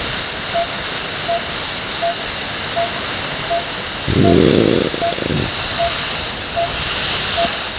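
Steady hiss of CPAP airflow with the machine switched on, holding the sleeping patient's airway open. A monitor beeps once about every three-quarters of a second, and a brief low sound comes about four seconds in.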